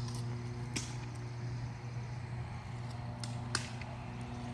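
Airsoft guns firing during a skirmish: three sharp snaps, one about a second in and two close together near the end, over a steady low hum.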